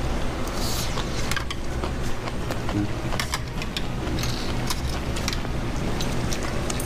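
A person eating at a table: chewing, with light clicks of chopsticks and a spoon against dishes, over a steady low hum.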